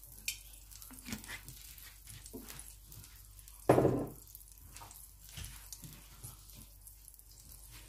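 Cooking oil heating in a nonstick frying pan, faintly crackling and spitting, with one louder short knock about halfway through.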